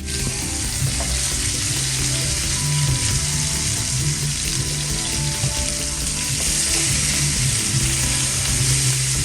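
Pork spare ribs sizzling steadily as they fry in a hot pan.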